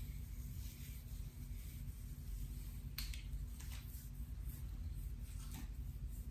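Long acrylic fingernails scratching through short hair on a man's scalp: a soft, dry scratching, with a few sharper strokes from about three seconds in. A steady low hum runs underneath.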